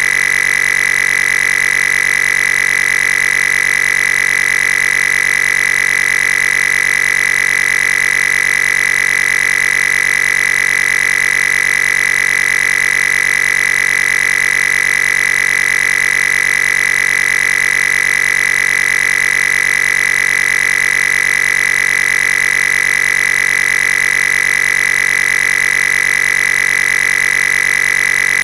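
A loud, steady, high-pitched electronic tone with a buzzy edge, held without any change in pitch or level, of the kind an audio signal fault or feedback whine makes.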